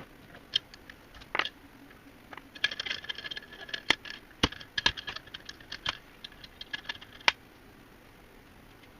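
Small metal parts and tools being handled on a key-duplicating machine: a scattered run of sharp clicks, clinks and brief rattles that stops about seven seconds in.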